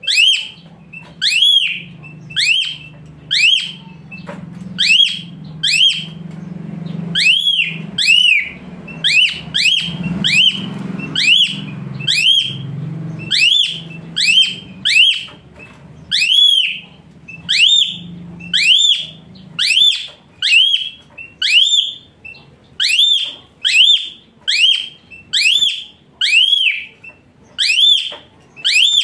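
Asian pied starling (jalak suren) giving loud, sharp whistled calls about once a second, each note arching up and then down in pitch: the 'hot shot' calls that bird keepers use. A low steady hum runs underneath for the first two-thirds and then stops.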